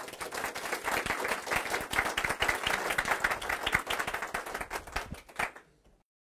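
Audience applauding, the clapping thinning out and then cutting off suddenly about six seconds in.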